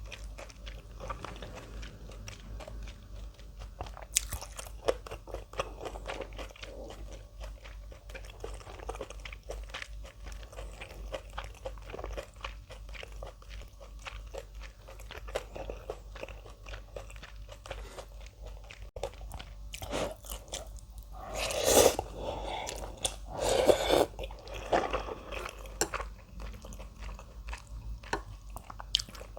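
A person chewing and crunching kimchi close to the microphone, a steady run of small crisp crunches. Two louder, longer bursts come about two-thirds of the way through.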